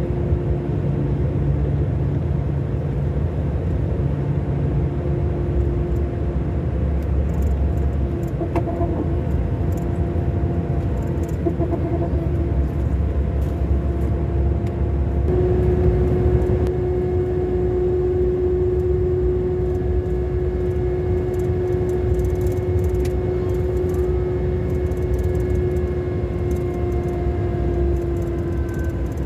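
Scania K400 Euro 5 coach's six-cylinder diesel engine running steadily under way, a low rumble with a steady whine that grows stronger from about halfway through.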